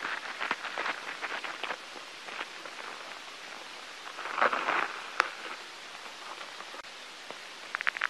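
Scattered light crackling clicks and rustles over a steady hiss, given as the sound of a ladybug. There is a cluster of clicks at the start, a louder rustle about halfway through with a sharp click right after, and a quick run of clicks near the end.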